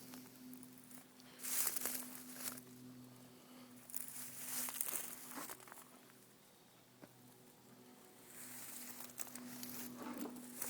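Rustling and crunching in three bursts, like something moving through dry debris, over a steady low hum.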